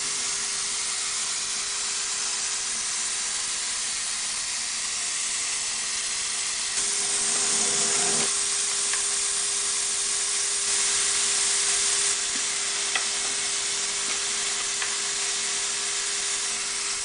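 Vertical boring spindle of an Accu-Systems HPJ-V-48 CNC bore-and-dowel machine running with a steady whine over a constant hiss. The hiss gets louder and brighter for several seconds in the middle, then settles again.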